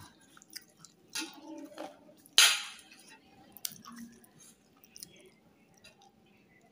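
Eating rice and crisp fried fritters by hand from a plate: soft chewing and small scattered clicks of fingers and food against the plate, with one louder sharp noise about two and a half seconds in.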